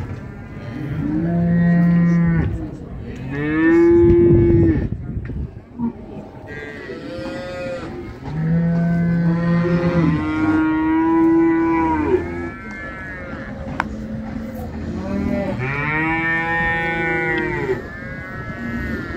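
Cattle mooing repeatedly: about six long moos, some low and some higher-pitched.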